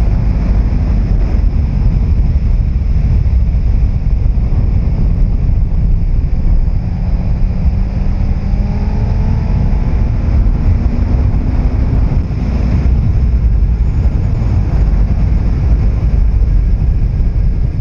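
Wind buffeting a helmet microphone on a moving Suzuki Hayabusa Gen 2, its inline-four engine with Yoshimura R-77 exhaust running beneath. About halfway through, the engine note rises steadily for several seconds, then drops back.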